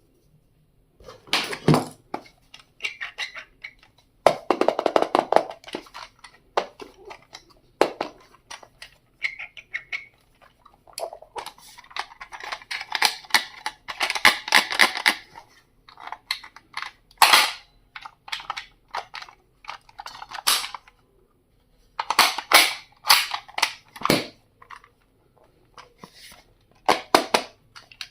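Stationery and its packaging being handled and unpacked: irregular sharp clicks and taps of plastic items, with several longer stretches of rustling wrapping.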